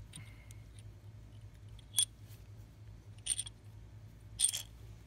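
Three sharp metallic clinks about a second apart, each with a short ring: the fuel connector tube knocking against the Cummins ISL cylinder head as it is fed by hand into its bore to the injector.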